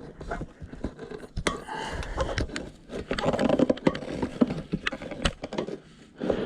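Tire bead being worked over a bicycle wheel rim by hand: irregular scraping of rubber on the metal rim with scattered clicks and knocks, busiest in the middle.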